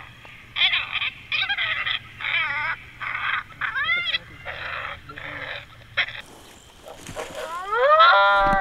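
Coyotes yipping and howling, in short, wavering, high bursts about one or two a second. Near the end a long howl rises in pitch and then holds steady, blown on an MFK Roo Challenge Howl call.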